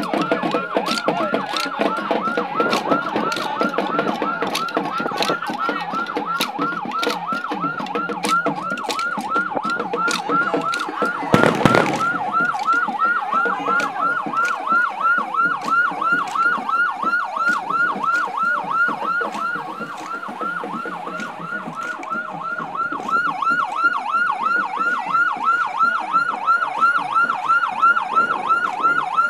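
Vehicle siren in a fast yelp, its pitch rising and falling about four times a second without a break. Sharp clicks cut through it in the first ten seconds, and a loud thump comes about eleven seconds in.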